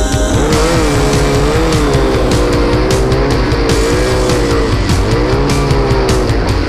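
Yamaha RX-1's four-stroke 1000cc snowmobile engine running at high speed, its pitch rising and falling repeatedly as the throttle is worked, with rock music playing over it.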